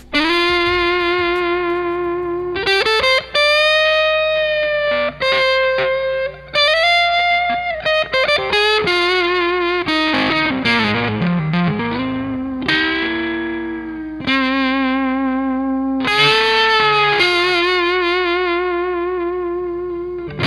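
Overdriven electric guitar playing a slow single-note lead line: sustained notes with bends and vibrato, sliding down in pitch and back up about halfway through.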